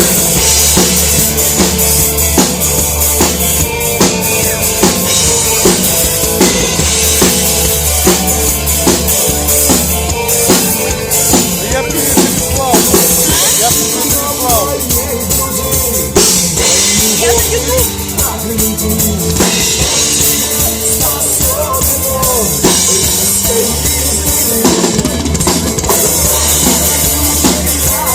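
Music with a drum kit keeping a steady beat of bass drum and snare over a bass line and melody.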